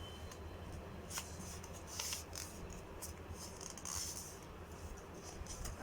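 Craft paper being folded diagonally in half and creased by hand: faint rustles and short scrapes, the clearest about 1, 2 and 4 seconds in, over a low steady hum.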